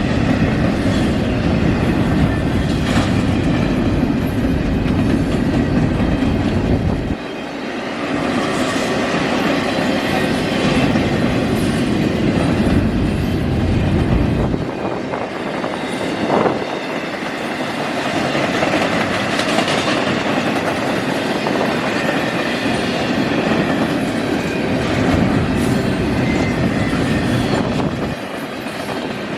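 Canadian National intermodal freight train's container cars rolling past, a steady rumble with wheels clicking over the rail joints. There is one sharp knock about halfway through.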